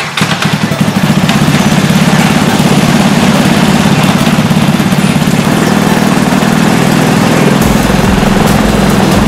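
Honda Strada 200 cc single-cylinder four-stroke engine driving the propeller of a paramotor mini trike during a static thrust test, building up over the first second and then running loud and steady. A deeper rumble joins near the end.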